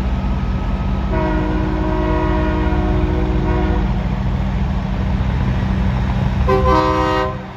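A passing truck's engine rumbles heavily while its air horn sounds a chord of several tones: one long blast of nearly three seconds, then a shorter blast near the end.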